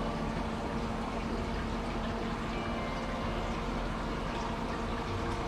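Steady rushing background noise with a low, steady hum.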